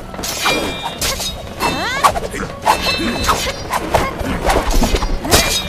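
Fight-scene sound effects: a rapid run of punch and kick impacts with swishes, over a dramatic background music score.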